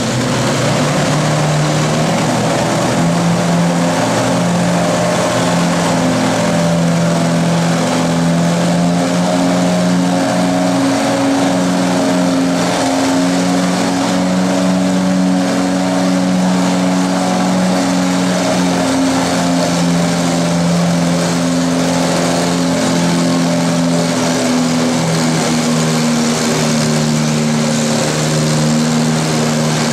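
Antique tractor engine running steadily at a near-constant speed, shifting slightly in pitch a few times.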